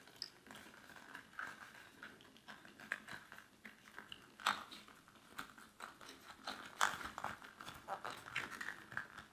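Plastic wiring connectors and a rubber grommet being handled and pushed together: faint scattered clicks, rubbing and crinkling, with two louder clicks about four and a half and seven seconds in.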